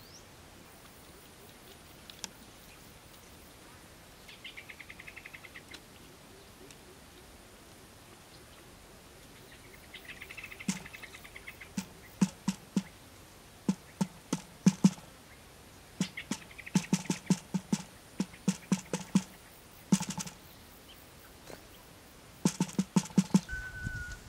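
Quail calling in short, rapid trills several times, with a run of irregular soft taps and knocks from about ten seconds in. A whistled music melody comes in just at the end.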